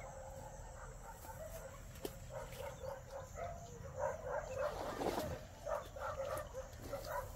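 Animal calls: short calls repeated a few times a second, a little louder from about four seconds in.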